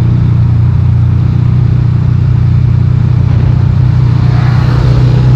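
Motorcycle engine running steadily while riding, a constant low drone with road and wind noise.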